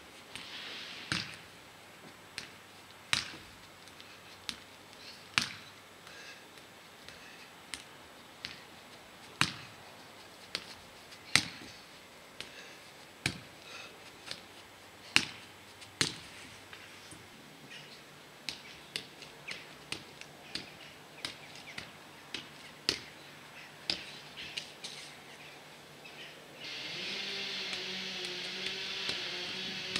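A football being kept in the air by a boy heading it. Each touch is a sharp thump, about once a second at first and about two a second later on. Near the end a steady hiss with a wavering hum comes in.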